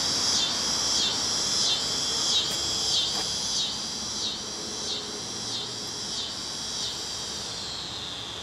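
Chorus of insects singing high-pitched, pulsing in a steady rhythm about one and a half times a second, fading slightly toward the end.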